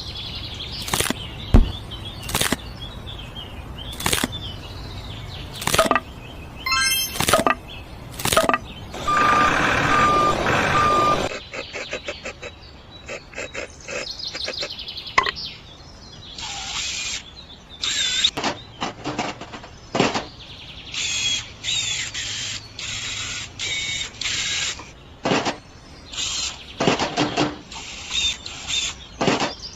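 Crafting sounds on small wooden parts: a series of sharp taps and clicks, with about two seconds of rasping, like sawing or sanding, around ten seconds in. In the second half, short high bird chirps come and go among more taps.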